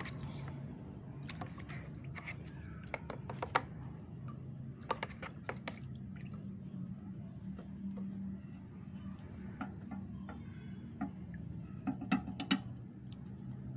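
Light clicks and taps of plastic tubs and a small hand net being handled over water, loudest about three and a half seconds in and again near the end, over a steady low hum.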